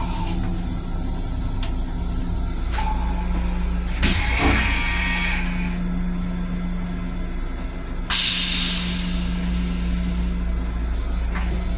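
LIRR M7 railcar toilet being flushed. About four seconds in there is a click and a brief rush into the stainless-steel bowl. About eight seconds in a sudden loud hiss of air starts and fades over about a second. A steady low hum of the railcar runs underneath.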